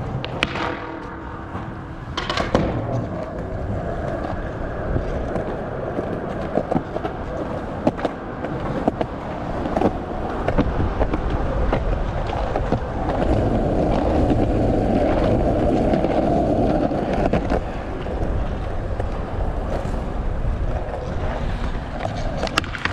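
Skateboard rolling on hard ground: a continuous rumble of the wheels with frequent sharp clacks and knocks. The rumble grows louder for a few seconds past the middle.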